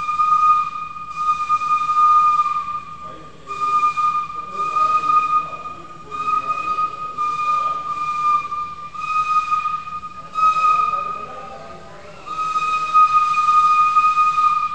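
Steam locomotive whistle blowing a long, steady high note over pulses of hissing steam. The note breaks off briefly about three seconds in and again near twelve seconds, then stops near the end.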